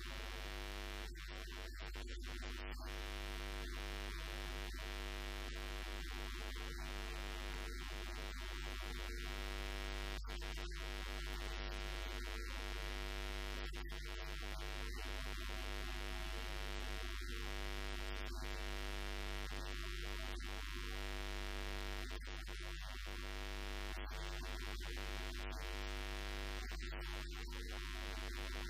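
Steady electrical mains hum with a stack of even overtones, holding at one level throughout; no speech is heard.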